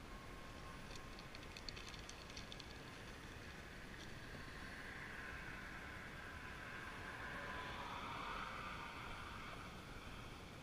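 Faint handling of fishing tackle: a few light ticks as the jig and line are worked by hand. Then a soft noise swells over several seconds and fades, like a vehicle passing at a distance.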